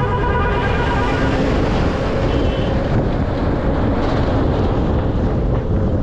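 Wind rushing over the microphone and the steady rumble of a moving vehicle on the road. Background music fades out about a second in.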